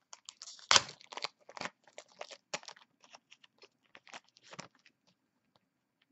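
A foil trading-card pack being torn open and crinkled: a run of sharp crackles, loudest about a second in, that thin out and stop near the end.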